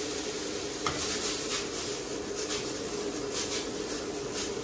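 Shrimp and julienned vegetables sizzling in a stainless steel sauté pan, with repeated soft scrapes and rustles as they are stirred and tossed.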